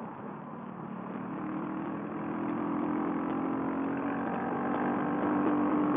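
CCM Spitfire's 600 cc single-cylinder engine pulling at open-road speed, heard from the bike over wind and road noise, getting gradually louder. At this speed the engine is running out of power.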